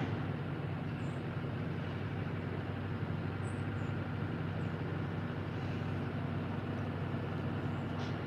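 Steady low mechanical hum and rumble of outdoor urban background noise, unchanging throughout.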